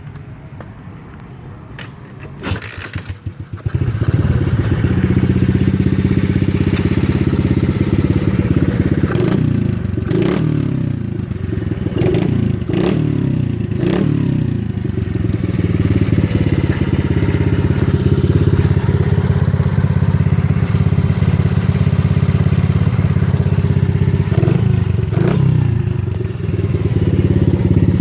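90 cc dirt bike engine with a new exhaust, caught about three and a half seconds in after a short stutter, then running loudly. It is blipped sharply several times from about nine to fourteen seconds in, and twice more around twenty-five seconds, each time falling back to idle.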